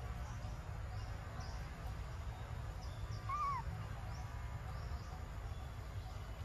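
Outdoor ambience with a steady low rumble and faint, repeated high chirps. About three seconds in comes a single short call that rises and falls in pitch, from an animal.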